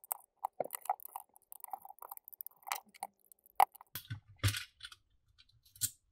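Small clicks and crackles of a thin metal plate and plastic housing being handled and pried apart, with a sharp click about three and a half seconds in. A couple of duller knocks follow as the metal backing plate comes off the SpaceMouse Pro's button panel.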